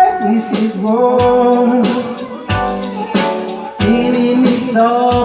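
Music with singing: a song plays with a steady beat and a held, sliding vocal line.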